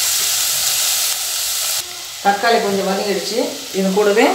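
Chopped onions, garlic and tomatoes sizzling in hot oil in an aluminium pressure cooker, a steady frying hiss that drops away abruptly about two seconds in.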